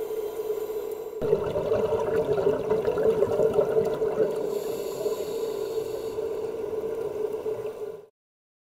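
Underwater sound: a steady hum under rushing water and bubble noise, growing louder and fuller about a second in, then cutting off abruptly near the end.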